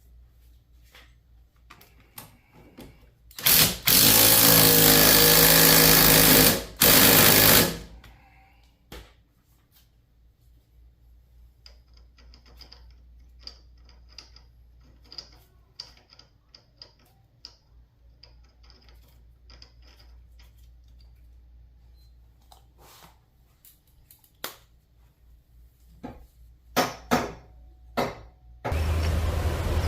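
Handheld power tool run in two short bursts, about four seconds altogether, then light clicks and clinks of hand tools and parts; the power tool starts up again near the end.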